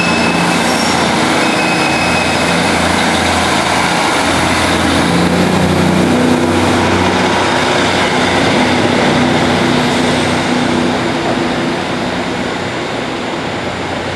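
Class 150 Sprinter diesel multiple unit's underfloor diesel engines running as the train pulls away and accelerates, a steady hum that fades as it moves off into the distance.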